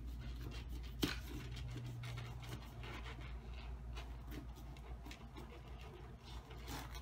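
Kitchen knife cutting into the thick, bumpy rind of a whole jackfruit: faint, irregular scraping strokes with a single sharper knock about a second in, over a low steady hum.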